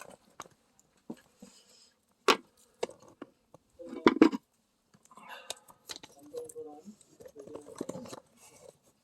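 Firewood being handled and fed into a wood-fired agungi fireplace: scattered clicks and wood knocks, a sharp knock about two seconds in and a louder cluster of knocks around four seconds. Faint pitched sounds follow in the second half.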